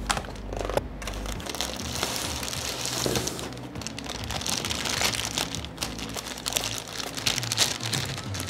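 Thin clear plastic packaging bags crinkling and rustling as they are handled and pulled open, after a couple of sharp clicks in the first second. Faint music plays underneath.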